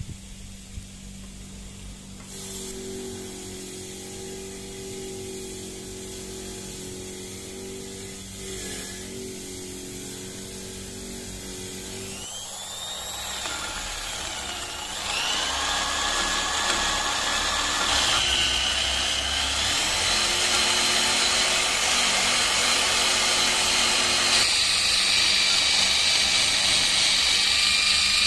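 Bench grinder with a wire wheel running with a steady hum. After about twelve seconds an electric drill takes over, spinning a sanding drum against the steel of a hammer head. The drill's whine rises and falls in pitch as it bears on the metal, then goes on as a louder, steady grinding whine.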